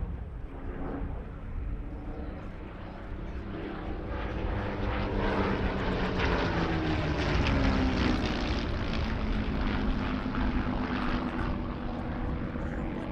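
Two Supermarine Spitfire Mk IX fighters' Rolls-Royce Merlin V12 engines running as the pair fly past in formation. The sound grows louder to a peak a little past halfway, and the engine pitch drops as they go by.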